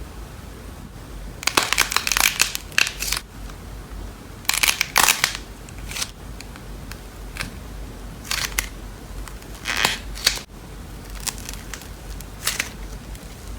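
Slime being squeezed and pressed, giving irregular bursts of crackling and popping clicks, about half a dozen times.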